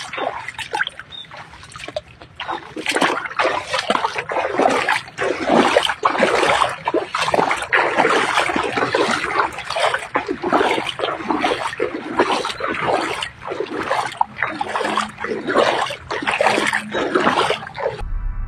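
Floodwater splashing and sloshing in irregular, uneven surges. Electronic music starts right at the end.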